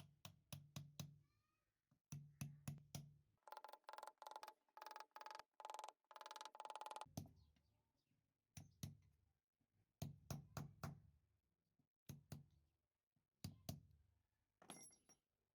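Quiet series of sharp knocks and taps in small clusters, with a few seconds of rapid, ringing tapping about halfway through.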